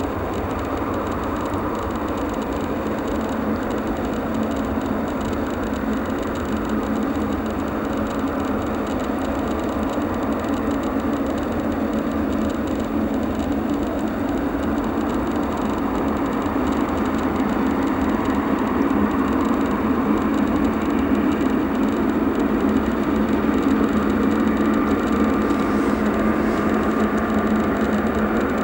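Boeing 777-300ER's GE90 turbofan engines running at low thrust as the airliner rolls slowly after landing: a steady rumble that grows slightly louder, with a faint whine coming in near the end.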